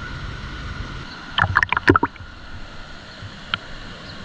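Stream water splashing and sloshing, with a quick cluster of splashes about a second and a half in and one more short splash near the end.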